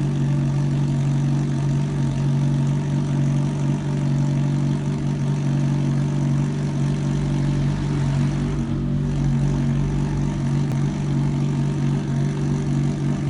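Motorcycle engine idling steadily, its pitch holding constant throughout.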